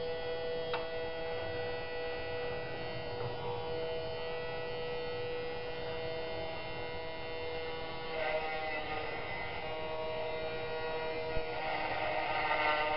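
Small electric engraving-cutter motor on a homemade pantograph, running with a steady high whine as it engraves lettering into a plastic label. A rougher, louder cutting hiss joins about eight seconds in and again near the end, as the cutter is taken deeper into the plastic.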